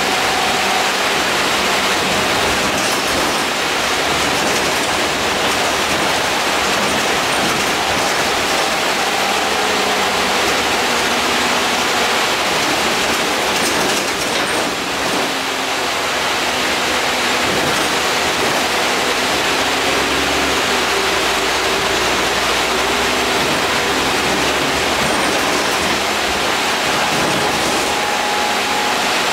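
Cabin noise on the lower deck of a moving Alexander Dennis Enviro 400 double-decker bus: a steady rushing of road and air-conditioning noise, with faint engine and drivetrain tones that rise and fall as the bus changes speed. The noise dips briefly about halfway through.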